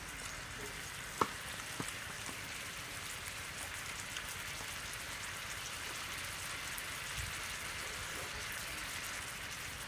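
Beef and vegetables sizzling steadily in a wide metal grill pan, with two sharp clicks near the start.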